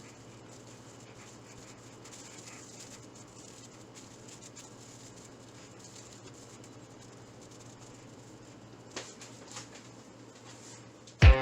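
Quiet background with a steady low hum and faint hiss, and a couple of soft clicks near the end. Music cuts back in just before the end.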